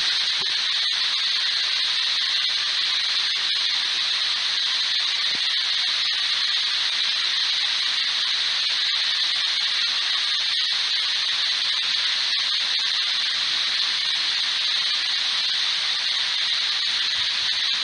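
Steady hiss of ghost-radio static, with faint scattered crackles.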